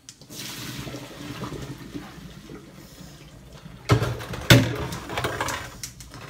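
Hot water and noodles poured from a cooking pot through a plastic colander into a sink, a steady rush of splashing water. Two sharp knocks land about four seconds in.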